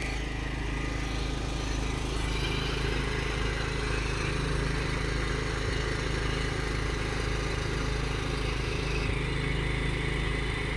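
An engine running steadily at constant speed: a continuous low hum with no change in pitch or level.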